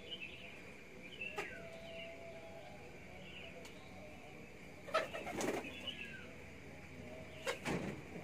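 Domestic pigeons in a loft: wings flapping in short bursts about a second in, around five seconds in and again near the end, with some soft cooing between.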